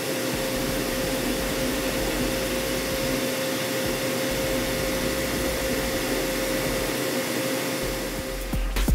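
CNC machining-center spindle running an OSG AT-2 carbide thread mill into solid hardened SKD11 tool steel (60 HRC), with air-blow coolant hissing steadily over the cut. A steady tone sits under the hiss throughout.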